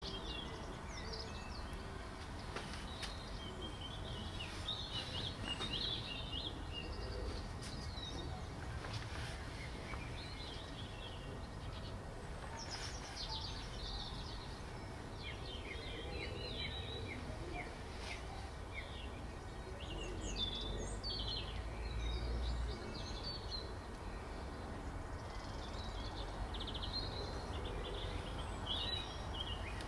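Outdoor ambience of small birds chirping and twittering on and off throughout, over a steady low background rumble that swells briefly about two-thirds of the way through.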